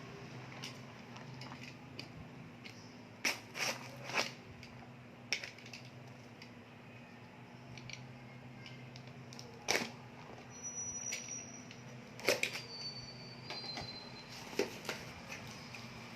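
Packaging of a glucose monitor kit being handled and opened: several sharp clicks and short rustles of cardboard and plastic, spread irregularly, over a faint steady low hum.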